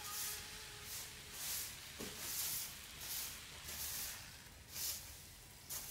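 Handheld trigger spray bottle spraying a plant: a short hiss with each squeeze of the trigger, repeated about once every three-quarters of a second.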